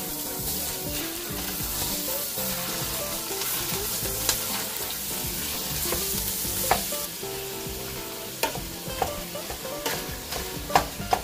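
Raw ground turkey sizzling as it browns in a hot stainless-steel pot while a utensil breaks it up and stirs it. In the second half come sharp knocks as the utensil strikes the pot.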